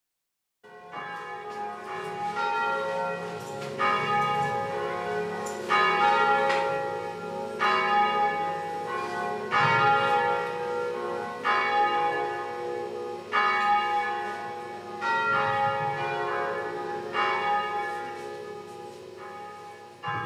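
Bells ringing, with a fresh stroke about every two seconds, each one ringing on into the next.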